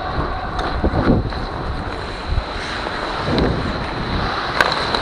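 Air rushing over a skating player's body-worn camera microphone as a steady low rumble, with skate blades scraping the ice and a few sharp clicks, the loudest near the end.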